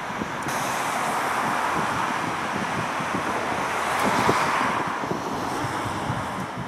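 Twin GE90 turbofans of a Boeing 777-300ER at takeoff thrust on its takeoff roll, a steady jet noise that swells to its loudest about four seconds in as the aircraft passes, then eases off. Wind buffets the microphone underneath.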